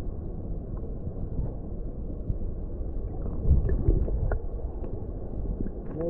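Stream water gurgling and rushing, heard muffled with the camera underwater, with a few faint ticks.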